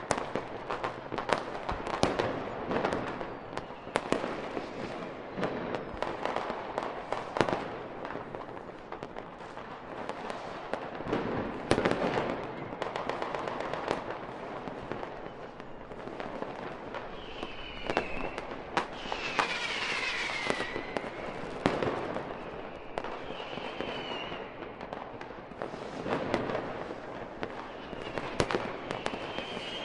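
Fireworks display: a continuous run of sharp bangs and crackling bursts, with several short whistling glides from a little past halfway on.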